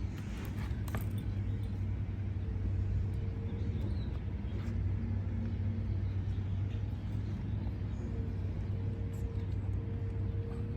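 A steady low hum, with faint steady test tones near 250 Hz and 500 Hz from a hearing-test audiometer coming and going over it.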